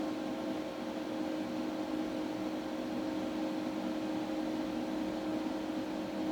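Air-cooling fan of a 1 kW LDMOS linear amplifier running steadily, a constant whir with a low hum.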